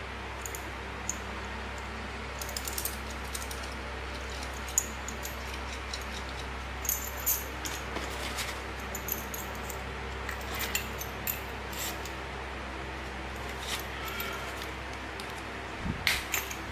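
Scattered light clicks and clinks of a Vessel screwdriver's metal shaft and bits being handled and packed into their clear plastic case, with a quick cluster near the end, over a steady low hum.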